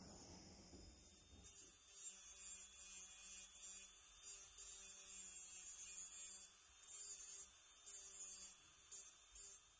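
Rotary tool with a sanding drum grinding a brass lamp burner gallery, a high gritty rasp that cuts in and out in short strokes as the drum touches and leaves the metal, starting about a second in. Before it, a brief low steady hiss from a torch flame.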